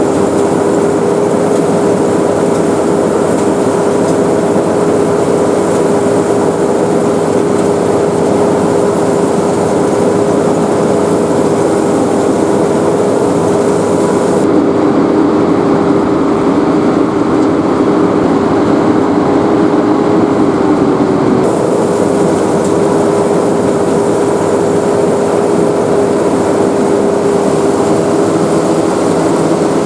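SAKPATTANA SS100 mini rice combine harvester running steadily: a constant engine and machinery drone with a steady whine over it. A second, lower tone joins about fifteen seconds in and stops abruptly about twenty-one seconds in.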